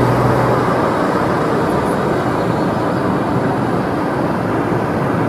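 Steady, loud rush of road and wind noise from a moving car, with a low hum through the first second.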